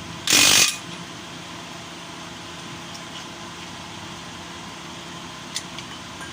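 One short burst from a power tool in a workshop, about half a second long, then a steady low hum with a single faint click near the end.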